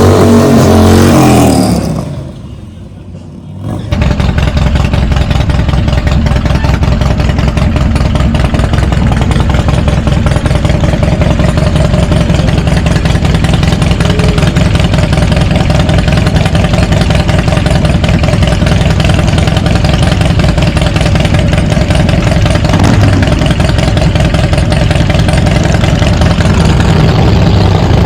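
Motorcycle engine running close by, with a quieter dip a couple of seconds in. It then settles into a steady, fast-pulsing low rumble at an even speed.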